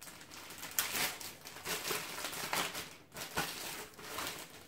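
Plastic packaging bags crinkling and rustling as they are handled, in irregular rustles that are loudest about a second in.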